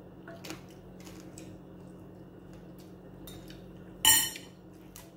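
A fork clinking against a large metal serving tray: a few light taps, then one loud ringing clink about four seconds in.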